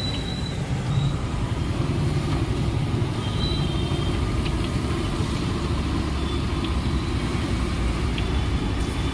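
Batter-coated bread pakodas deep-frying in a kadai of hot oil, a steady bubbling sizzle, over a constant low rumble that is the loudest part of the sound.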